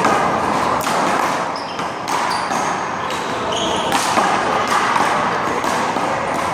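One-wall handball rally: a small rubber handball smacked by hand and hitting the wall and ground, several sharp slaps at uneven intervals over steady background noise.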